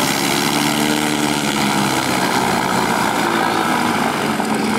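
Cessna 337 Skymaster taxiing past on grass: a steady drone from its push-pull pair of piston engines and propellers, at low ground-running power.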